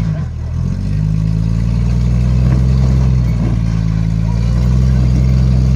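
Off-road 4x4's engine working at low revs while crawling over rocks. The revs dip briefly about half a second in, pick back up, and then hold steady, rising slightly in the second half.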